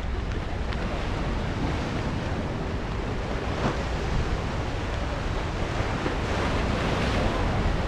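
Ocean surf washing onto the rocks at the foot of a sea cliff, a steady wash with a wave swelling louder near the end, over wind buffeting the microphone.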